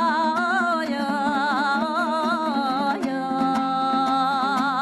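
A Kazakh folk song sung with wide vibrato, the voice holding and ornamenting long notes between lines, over dombra accompaniment whose strummed strokes grow busier about halfway through.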